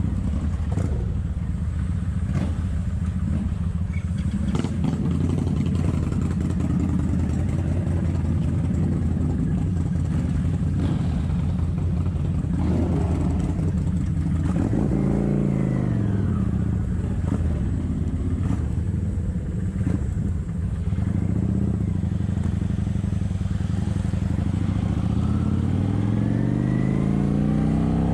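Kawasaki Vulcan 900's V-twin engine running under way at a steady speed. About halfway through its pitch dips and climbs back, and near the end it rises as the bike accelerates.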